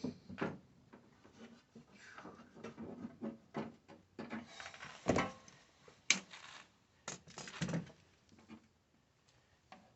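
Irregular rustling, scraping and light knocking of a hand working blind in a tight space behind a dashboard, feeding an antenna cable through. A few short, louder scrapes come in the second half, and it quiets near the end.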